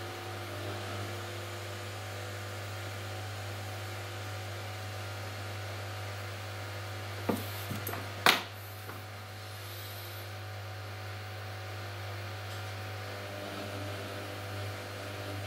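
Steady low electrical hum of the rework bench equipment, with a faint hiss. About seven seconds in come a few light clicks, then a single sharp knock as the hot-air nozzle is brought down over the iPhone 4S Wi-Fi chip.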